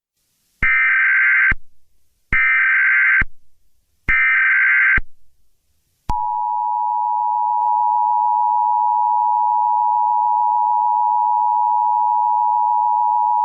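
Emergency Alert System tones: three identical bursts of SAME header data, each about a second long, then about six seconds in the steady two-tone EAS attention signal (853 and 960 Hz) begins and holds.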